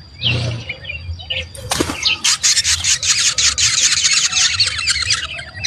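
A brood of nestling birds calling in a rapid chorus of high chirps, many a second, beginning about two seconds in. Before that, two short rustling bursts, like wings flapping.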